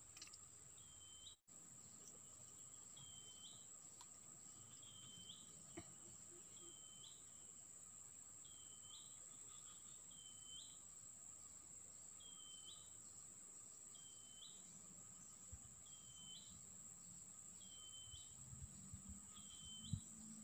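Faint insect chorus: a steady high-pitched buzz, with a short rising chirp repeated about once a second. A few faint low rumbles and a click come near the end.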